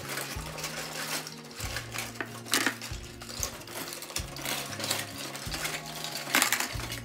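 Small hard plastic Playmobil toy pieces clattering and rattling as hands rummage through bins of them and drop pieces into a clear plastic bin, with music playing underneath.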